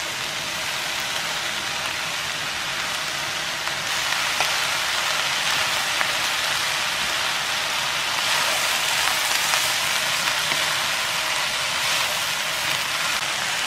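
Diced Spam and chopped vegetables sizzling steadily in a frying pan as they are stir-fried with a wooden spatula, the sizzle growing a little louder about four seconds in.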